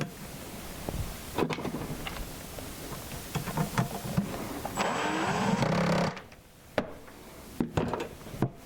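A handheld power drill runs for about a second, speeding up with a rising whine, while hardware is drilled and fitted with a jig. Scattered clicks and knocks of handling come before and after it.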